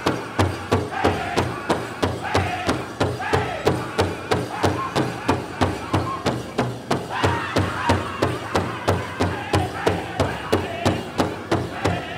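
Powwow drum group playing a chicken dance song: one big drum beaten in a fast, even beat, about three to four strokes a second, under a group of singers' high, wavering voices.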